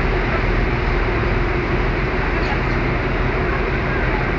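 River passenger boat under way: its engine drones steadily with a constant low hum, under an even rushing noise.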